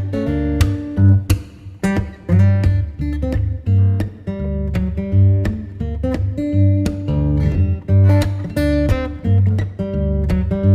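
Acoustic guitar music, plucked and strummed notes in a steady rhythm over a low bass line.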